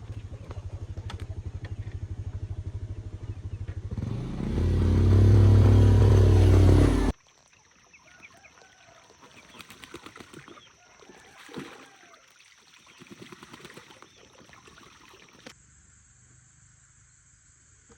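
A small engine runs with a steady beat, then revs loudly for about three seconds and stops abruptly. After that there is quiet outdoor ambience with faint bird calls and a steady high whine.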